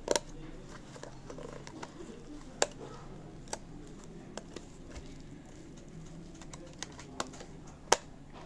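Fingers prying the rubber bumper sleeve off an ADATA HD330 portable hard drive: scattered sharp clicks and taps of nails and rubber against the hard plastic shell, the loudest near the end, over a faint low steady murmur.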